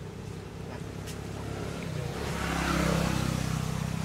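A motor vehicle passing, its engine and road noise swelling to its loudest about three seconds in and then fading, over a steady low engine hum.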